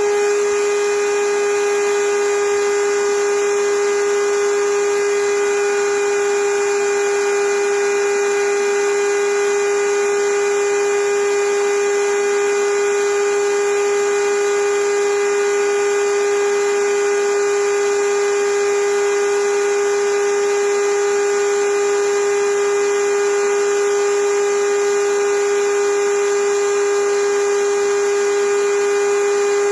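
Power tool motor running at a constant speed with a steady, unchanging high whine.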